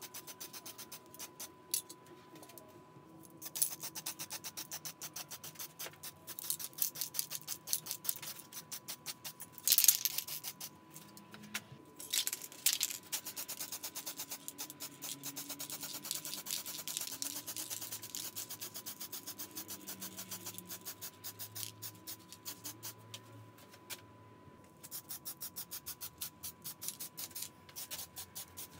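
Aerosol spray-paint can hissing in bursts as paint is sprayed onto a metal rake head, stopping briefly a few times between passes. Faint background music with low shifting notes plays underneath.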